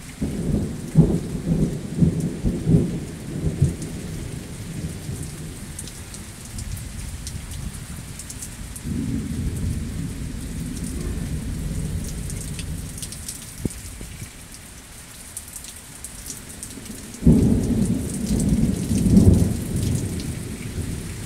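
Thunder in a steady rain: a sudden loud crack at the start that rumbles on for about four seconds, a softer rumble in the middle, and a second sudden clap near the end that rumbles for a few seconds. Rain patters and drips throughout.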